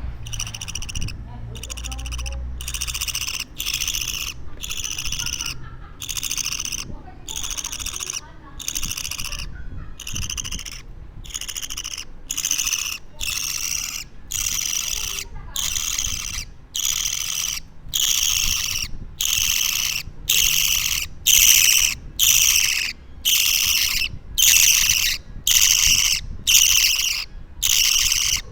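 Two-week-old budgerigar chick calling over and over, a harsh rasping call repeated about every three-quarters of a second, typical of a chick begging for food. The calls grow louder through the second half.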